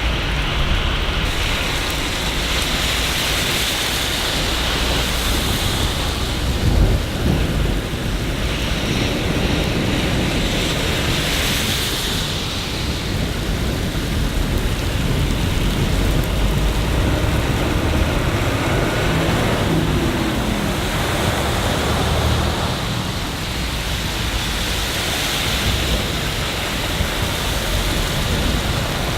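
City rain falling steadily, an even hiss with a low rumble underneath that swells and fades. One brief louder knock about seven seconds in.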